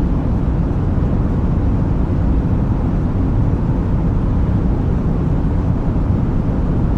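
Airplane noise: a steady low rumble with no clear tones and little change over the whole stretch.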